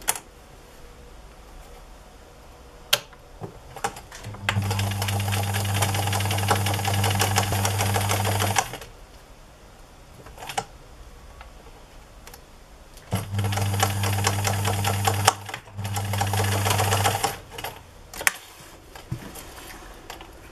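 Electric domestic sewing machine stitching through layered fabric in three runs: one of about four seconds, then, after a pause, two shorter runs with a brief stop between. Its motor hums steadily under a rapid needle clatter, with a few light clicks of handling in the pauses.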